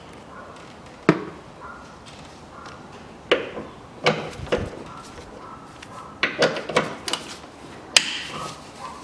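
Socket wrench on a long extension bar clinking and knocking against metal while the bolts of the timing-side engine mount are undone: a handful of sharp metallic clinks at irregular intervals.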